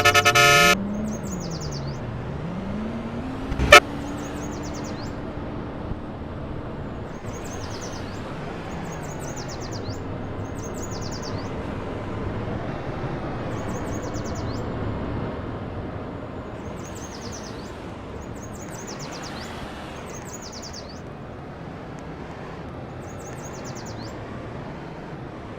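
A car horn playing a multi-tone tune cuts off about a second in. After it, a vehicle engine revs up and down and settles over traffic noise. A sharp click comes about four seconds in, and a bird chirps every couple of seconds.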